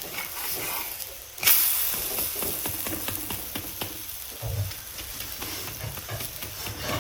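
Food sizzling in oil on a hot tawa, with many small ticks through it. About a second and a half in, the sizzle suddenly gets louder, as when something fresh goes into the hot pan.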